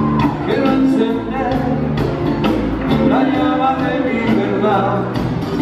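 Live band music: a drum kit keeping a steady beat under bass and guitars, with a lead voice singing over it.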